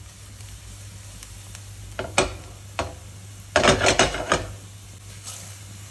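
Diced onion and celery frying gently in olive oil in a nonstick frying pan, with a quiet sizzle. The pan is shaken on the gas stove: a few sharp knocks about two seconds in, then a louder run of clattering and scraping about three and a half to four and a half seconds in.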